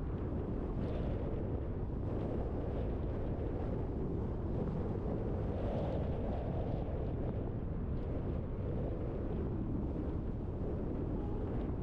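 Steady low rumble of a car driving along a road, tyre and engine noise mixed with wind noise on the microphone.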